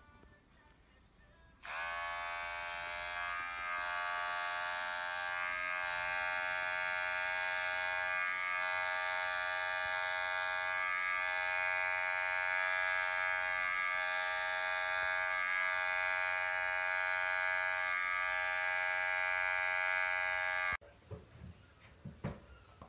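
Electric pet hair clipper running with a steady buzz as it trims a cat's paw fur. It starts abruptly about two seconds in and cuts off abruptly near the end.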